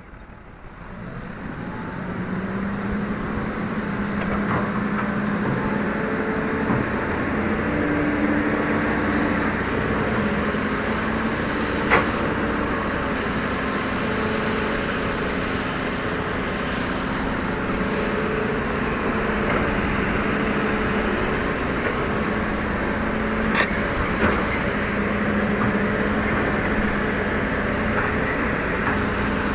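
Hitachi hydraulic excavator running steadily under work, its engine and hydraulics sounding together with a high hiss, louder over the first couple of seconds. A sharp knock comes twice, about twelve and twenty-three seconds in.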